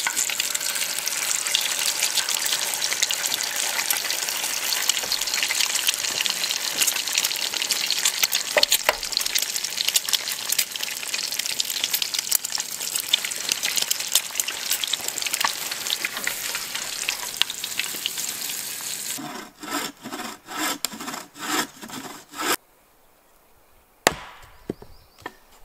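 Eggs frying in a skillet on a camp stove: a steady loud sizzle with fine crackles. Near the end this gives way to a few seconds of rhythmic strokes, about two a second, then a single sharp knock.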